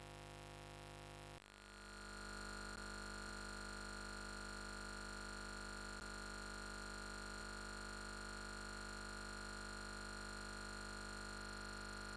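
Faint steady electrical hum and hiss, made of many constant tones with no other events. About a second and a half in it briefly dips and then settles a little louder.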